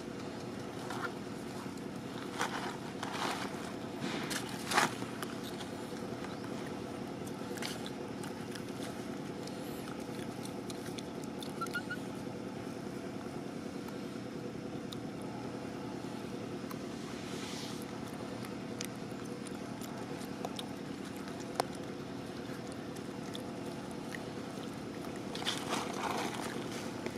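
Steady low background hum, with a few soft clicks and rustles scattered through it. The sharpest click comes about five seconds in, and a longer rustle comes near the end.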